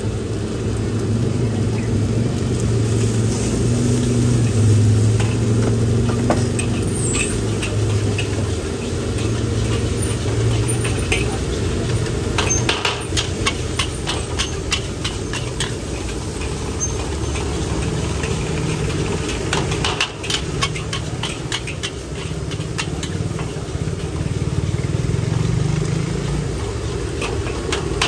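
An engine running nearby with a low, steady hum that shifts in pitch partway through. From about twelve seconds in, a scattered run of sharp clicks and knocks joins it.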